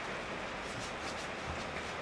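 Steady background hiss with a few faint clicks and one soft knock, as small metal motor parts are handled.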